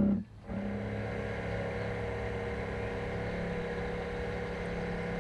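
Radio-controlled container-ship model's electric drive motor running at a steady pitch, a steady hum with light water wash, picked up by a camera mounted on the hull. The sound drops out briefly just after the start, then runs on evenly.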